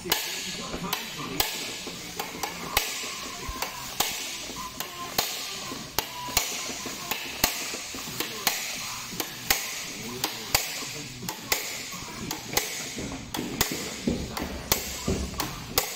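Slide hammer on a Yamaha outboard's propeller shaft: the steel weight is slammed repeatedly against its stop, sharp metallic clanks about one to two a second, drawing the prop shaft out of the gearcase.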